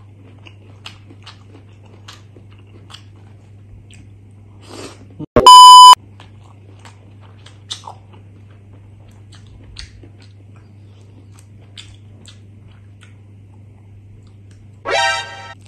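Close-miked chewing and small wet mouth clicks from someone eating rice and curried tripe and bamboo shoots by hand, over a steady low hum. About five seconds in, a very loud electronic beep of about half a second cuts in, and near the end there is a short pitched vocal sound.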